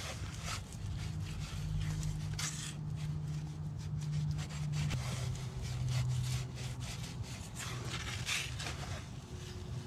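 A gloved hand pressing and smearing wet mud into the joints between stone slabs, with irregular rubbing and scraping of mud and grit on stone, sealing the inside of a stone oven. A low steady hum runs underneath.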